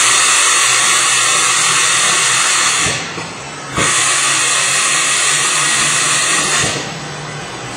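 Compressed air hissing in two long blasts of about three seconds each, with a short break between them. Each blast starts and stops sharply.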